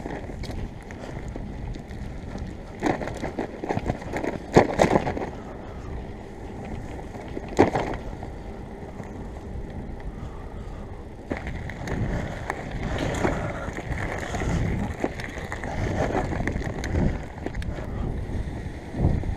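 Bicycle rolling over a rough lane: steady tyre rumble and wind buffeting on the microphone, with several sharp knocks and rattles from bumps in the first half.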